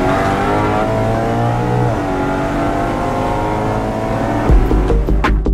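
BMW E90 M3's V8 engine accelerating, heard from inside the cabin: the pitch climbs, drops at an upshift about two seconds in, then climbs again. Electronic music with a heavy drum beat comes in near the end.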